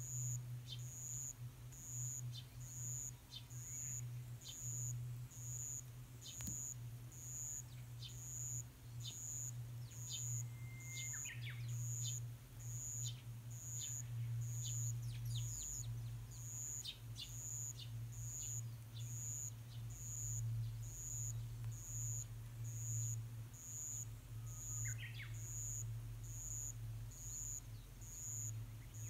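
Eurasian tree sparrows giving short, scattered chirps while feeding on the ground, busiest in the middle. Under them runs a steady low hum and a high thin tone that pulses evenly about once a second.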